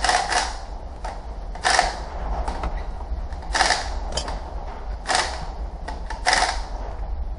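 A string of short, noisy scuffs and rattles, spaced about a second apart at uneven intervals, from parts being handled in the stripped-out car interior. A steady low hum runs underneath.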